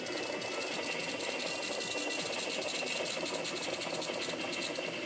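Butane jet torch lighter burning with a steady hiss and a fast, even flutter in the flame.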